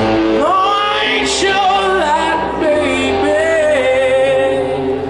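Live rock band playing, with a male lead singer's held, sliding sung notes over electric guitars, bass and drums through a concert PA.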